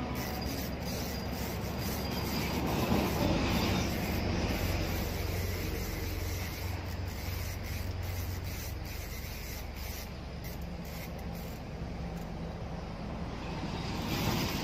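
Spinning fishing reel being cranked as a small fish is reeled in, over steady outdoor noise. There is a brief splash near the end as the fish comes up out of the water.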